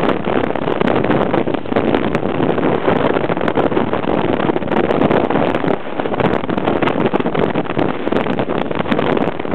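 Wind buffeting the microphone of a camera riding on a moving motorcycle: a steady loud rush with frequent crackling gusts, mixed with the motorcycle's running noise.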